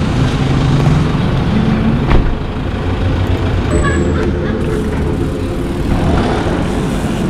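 Motor vehicle engine running close by amid road traffic noise, with a brief high squeal about four seconds in.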